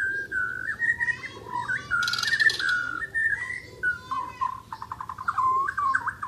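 White-rumped shama (murai) singing continuously: a string of varied whistled phrases, a brief harsh burst of high notes about two seconds in, and a fast stuttering trill near the end.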